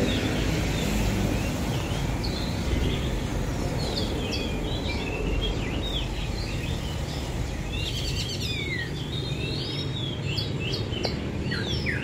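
Several caged songbirds chirping and warbling in quick, varied phrases, sparse at first and busier in the second half, over a steady low background rumble.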